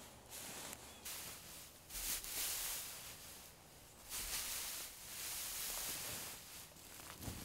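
Dry grass and debris rustling and crackling as handfuls are stuffed into a wool blanket, in two longer bursts.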